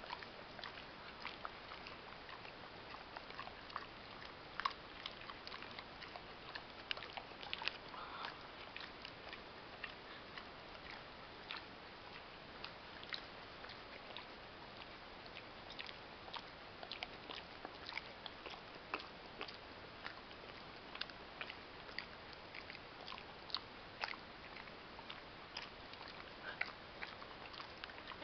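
Boxer dog chewing sticky caramel candy (Sugar Babies): irregular clicking of its jaws and mouth, on and off throughout.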